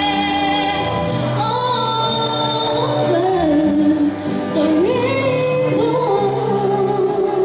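A woman singing a solo melody into a handheld microphone over musical accompaniment, her voice gliding between notes and settling into a long held note near the end.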